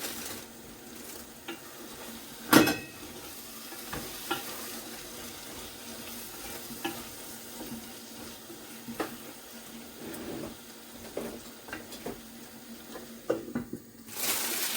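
Stew sizzling in a cooking pot while a spoon stirs it, knocking against the pot: one loud knock about two and a half seconds in, then lighter clinks every second or two.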